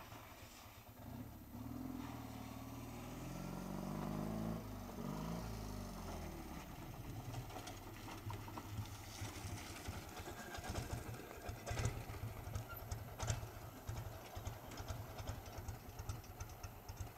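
Ural sidecar motorcycle's flat-twin engine pulling closer under power, its pitch rising, then dropping back as it slows about five seconds in. It then idles with an even low chug, with two sharp knocks about midway.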